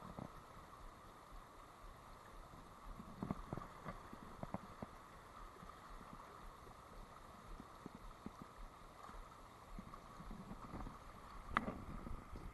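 Steady rush of a fast stream riffle, with a few light knocks and taps.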